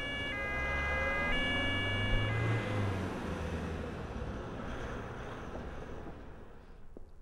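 Ambulance two-tone siren switching between a higher and a lower pitch about once a second, stopping about two and a half seconds in, over the rumble of the vehicle driving off, which then fades away.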